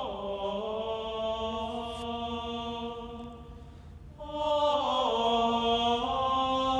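Slow sacred chant sung by voices on long held notes. The first phrase fades out about three to four seconds in, and a new, louder phrase begins just after.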